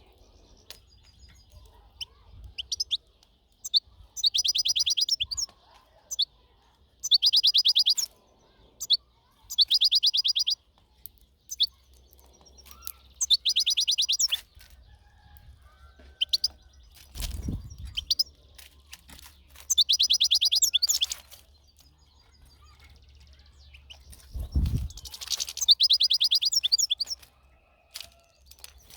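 European goldfinch calling in about six separate bursts of rapid, high twittering trills, each lasting about a second, with pauses between them.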